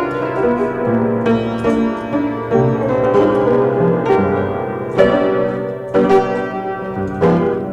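Piano music: a steady flow of struck notes and chords.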